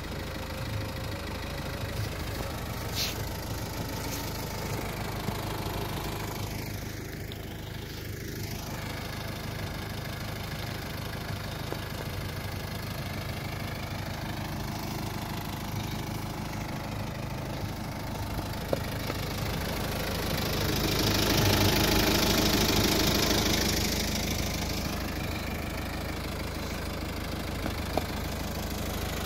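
A Mitsubishi Pajero's engine idling steadily. About two-thirds of the way through, a hiss swells for several seconds and fades.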